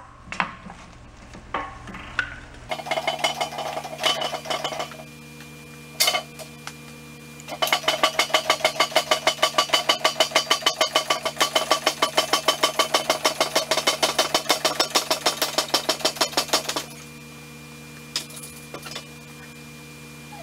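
Rapid, even metallic clicking, about five clicks a second for roughly nine seconds, as a four-post car lift's crossbeam is raised on a lift table and its posts swing up. A steady electrical hum runs underneath.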